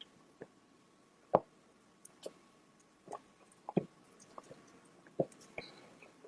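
Close-miked wet eating sounds from saucy seafood: scattered sticky clicks, smacks and squishes, about one or two a second, the loudest about a second and a half in.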